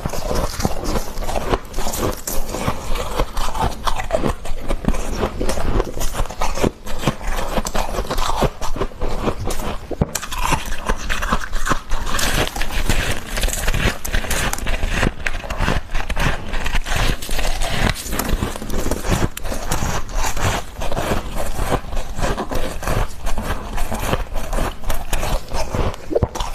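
Freezer frost being scraped and crunched close to the microphone, a dense, continuous run of crackles with no pauses.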